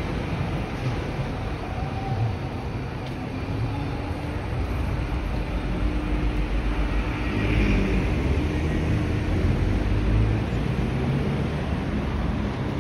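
City street traffic: cars driving past on a multi-lane avenue, a steady low rumble that swells louder about halfway through as vehicles go by.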